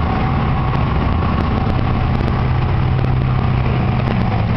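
A motor vehicle engine running steadily with a low rumble; a steady low hum comes in about two seconds in.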